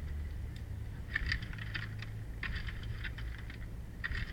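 Four short bursts of metallic rattling and clinking, roughly a second and a half apart, over a low, uneven rumble.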